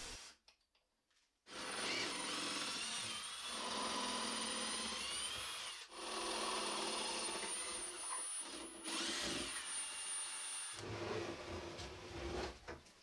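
Power drill-driver turning screws into the wooden plugs over the workbench top's screws, pulling the plugs out. It runs in several spurts of a few seconds with brief pauses between them, the motor whine rising and falling in pitch.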